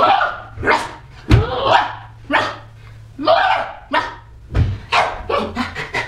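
Short, bark-like vocal yelps repeated every half second to a second, with a couple of dull thumps on the floor.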